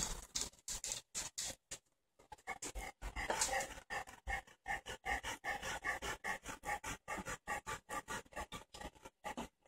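Bloodhound panting, a quick even rhythm of about three breaths a second, with a short pause about two seconds in.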